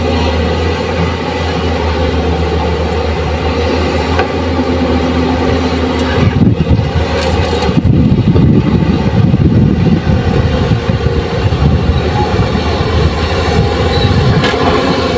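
Heavy diesel engine of a working JCB hydraulic excavator running steadily. About six seconds in it turns rougher and louder, as under load while digging and swinging.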